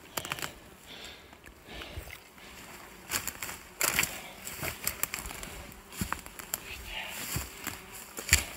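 Irregular rustling and scuffing of footsteps through brush and grass, with scattered knocks and clicks from a handheld phone being handled.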